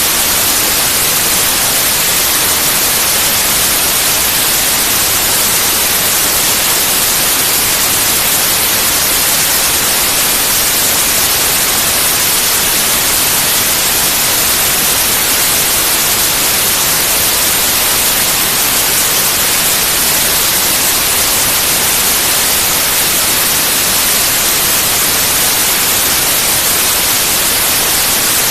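Steady, loud white noise: an even hiss across the whole range, brightest in the highs, unchanging throughout.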